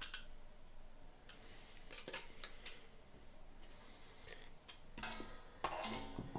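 Light clicks and taps of small hard parts being handled, with a denser rattling scrape about five seconds in.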